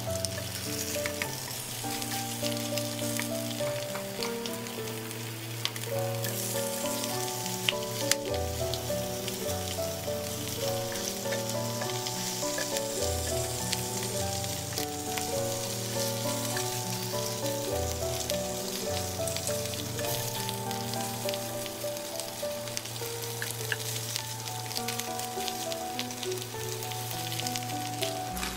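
Slices of Spam sizzling as they fry in a little oil in a nonstick pan, with a few sharp clicks. Background piano music plays throughout.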